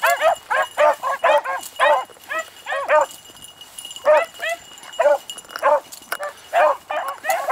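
Beagles baying in quick, repeated yelping calls, several a second, breaking off for about a second near the middle and then going on more spaced out.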